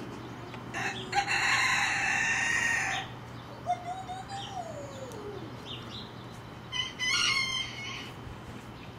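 A rooster crowing twice: a long crow about a second in, and a shorter one near the end.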